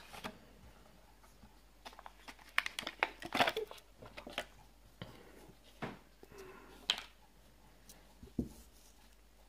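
Knife packaging being opened by hand: intermittent crinkling and rustling with a few sharp clicks, busiest a couple of seconds in, then single clicks near the end.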